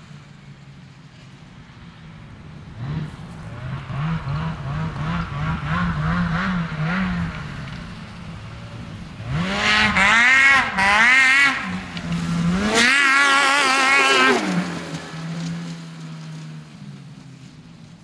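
Snowmobile engine being ridden hard: a run of short throttle blips about three seconds in, then two long loud revs that climb and fall in pitch around ten and thirteen seconds in, dropping back to a low steady idle near the end.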